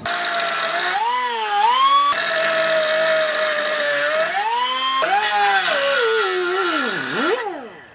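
Angle grinder cutting slots into a steel car frame: a loud, high motor whine over the hiss of the disc grinding metal, its pitch sagging and recovering as the disc bites. The whine dips sharply and dies away shortly before the end.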